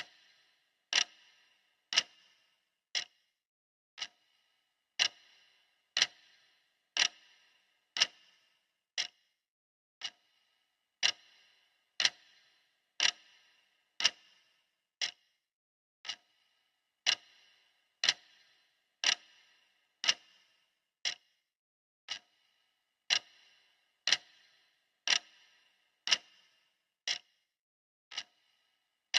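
Clock ticking steadily once a second, each tick a sharp click, some ticks louder than others.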